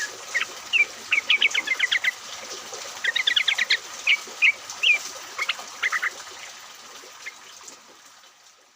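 Sooty-headed bulbuls (trucukan) calling: scattered short chirps and two quick rattling trills, the fast 'ropel' calls keepers use to lure caged birds into singing. Behind them is a steady hiss of rain. The sound fades out near the end.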